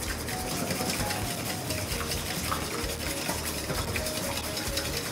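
A fork beating eggs in a stainless steel bowl: a quick, steady run of light metallic clicks as the tines strike the bowl. Faint background music plays underneath.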